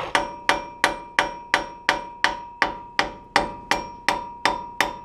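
A hammer striking a metal part in a steady rhythm, about three blows a second, each ringing briefly, to knock loose the small protective shield on a vehicle's front wheel hub assembly.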